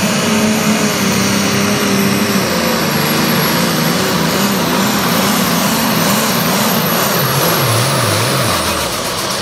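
New Holland-bodied diesel pulling tractor running flat out under load as it drags a weight-transfer sled. Its engine note wavers up and down as the tractor bounces with its front end in the air, then falls away near the end as the pull finishes.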